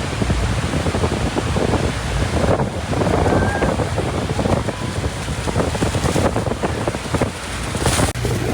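Niagara Falls' rushing water, a loud steady roar, with wind buffeting the microphone. A brief louder burst comes near the end.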